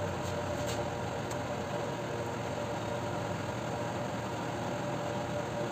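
Steady mechanical hum of a running motor, a constant drone that does not change in pitch or level. A few faint clicks in the first second and a half.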